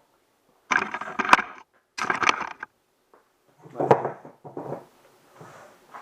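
Handling noise from a freshly assembled metal-framed dining chair: a series of knocks, rattles and scrapes in about five separate bursts, with sharp knocks early on and near the middle.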